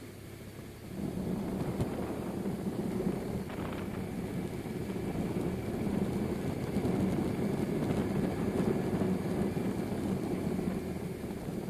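BMW R1100RS flat-twin boxer engine running as the motorcycle rides on, mixed with heavy wind rush on the onboard microphone. The sound swells about a second in and then holds steady.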